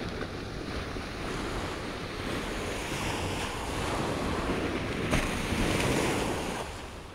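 Ocean surf washing on a beach, with wind on the microphone; it swells about four seconds in and fades out near the end.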